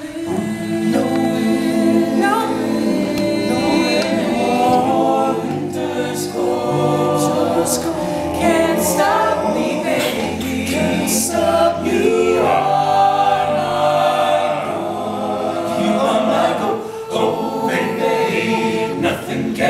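All-male a cappella group singing in close harmony: several voices holding chords that shift, with no instruments.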